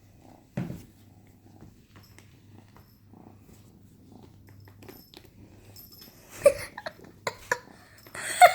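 Kitten purring steadily, with a knock about half a second in and a few short, loud sounds near the end.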